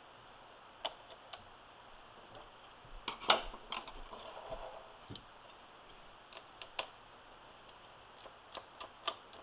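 Small scattered clicks and taps of hands and a small screwdriver working on an opened laptop's motherboard and plastic chassis. A busy cluster of clicks comes about three seconds in, with the loudest sharp click among them, and a few lone clicks follow later.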